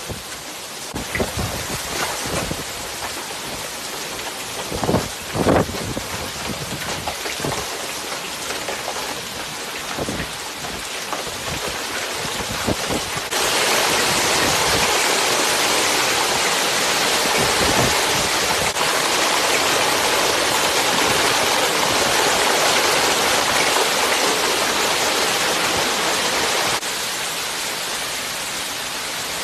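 Steady rushing noise of heavy rain and running floodwater, with a few knocks in the first six seconds. It jumps abruptly louder about halfway through and drops back sharply near the end.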